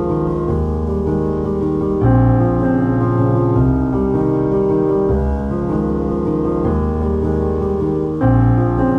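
Instrumental background music: sustained chords that change every one and a half to two seconds.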